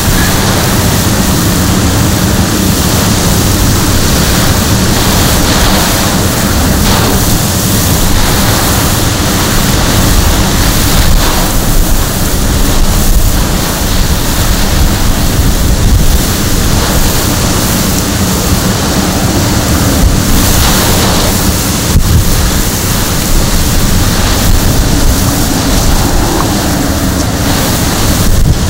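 Hurricane wind and driving rain: a loud, steady rush of noise, with wind buffeting the microphone.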